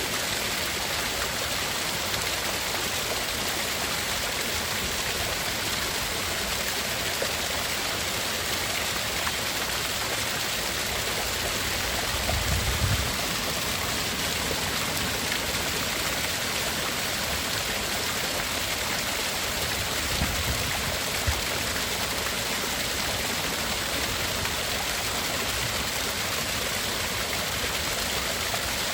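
Steady rushing water, an even, continuous hiss like a stream or small waterfall, used as a masking sound. Two brief low rumbles come through, a little under halfway and about two-thirds of the way in.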